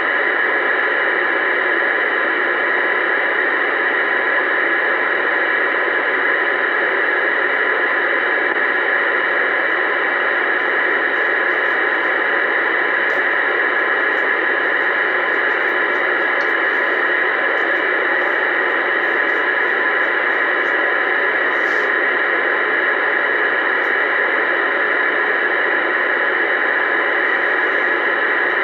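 Uniden Bearcat 980SSB CB radio receiving on AM channel 28 with no one talking, its speaker giving out a steady, even hiss of static (band noise).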